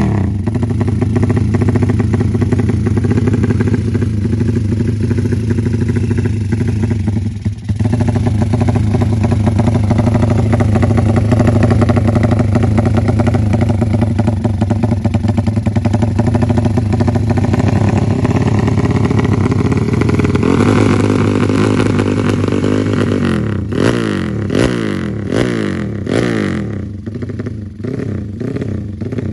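Honda Tiger single-cylinder four-stroke motorcycle engine running through an aftermarket muffler, held at a steady idle for about twenty seconds. It then rises in revs and finishes with a series of short, sharp throttle blips.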